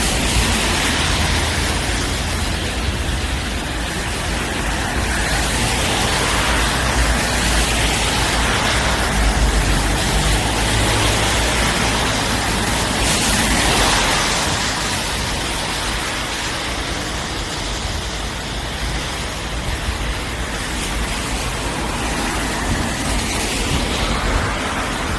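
Cars driving by on a rain-soaked road, tyres hissing through the water. It is a steady wash of spray noise that swells as each car passes, clearest a second in, around six seconds in and around thirteen seconds in.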